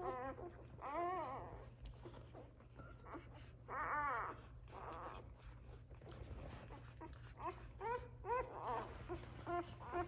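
Newborn Australian Labradoodle puppies squealing and whimpering: short, high, wavering cries. The loudest comes about four seconds in, and a run of quick little squeaks follows near the end.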